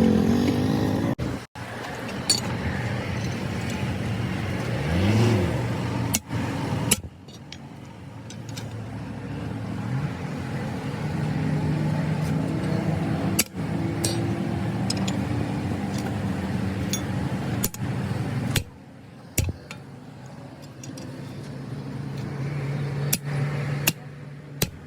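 Motor vehicle engine and road noise, with a low steady engine hum and a brief rise and fall in pitch about five seconds in, chopped into several short pieces by abrupt cuts.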